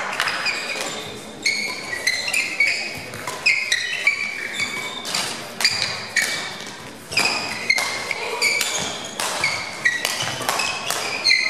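Badminton doubles rally: repeated sharp strikes of rackets on the shuttlecock, along with footfalls and many short squeaks of court shoes on the hall floor.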